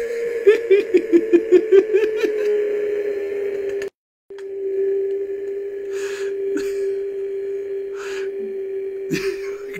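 A man's long, high-pitched wail. It pulses about four times a second near the start, breaks briefly for breath about four seconds in, then is held on one steady pitch.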